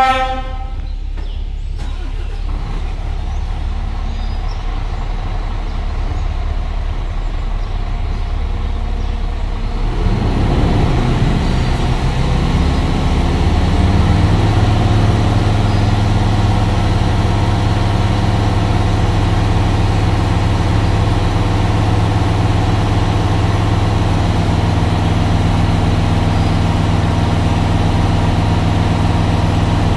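Scania P410 XT truck's 13-litre six-cylinder diesel running at idle, then revved up about ten seconds in and held steady at around 2,000 rpm. The engine is run up to fill the air tanks, which are not filling fully under a critical air-consumption warning caused by an air leak.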